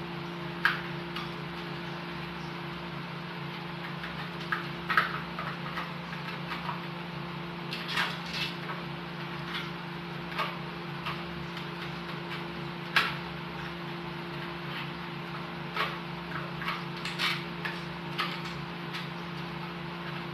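Scattered light clicks and taps from hand work on the parts of an electrical outlet being installed, over a steady low hum.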